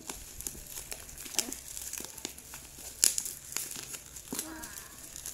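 Black plastic wrapping crinkling and crackling as hands unwrap a boxed phone. The crackles come in an irregular run, with a sharper one about three seconds in.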